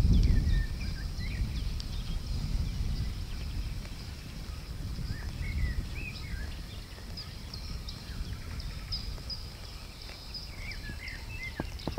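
Several small birds chirping and calling, with a low rumble underneath that is loudest in the first second.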